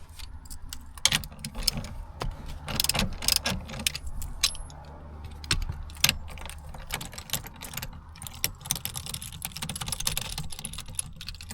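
Irregular metallic clicks, clinks and rattles from hand tools and fittings as a Ford Mustang's steering wheel is being removed from its column, over a steady low hum.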